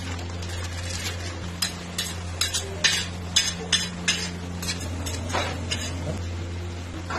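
A steel ladle clinks and scrapes against a steel kadhai and tray as fried cashews are lifted out and tipped onto the tray, in a string of sharp metallic clinks over a steady low hum.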